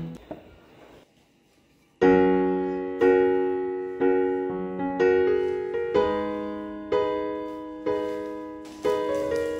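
Background music: the tail of a song fades out, a second of near silence follows, then piano music begins with a chord struck about once a second, each ringing and fading.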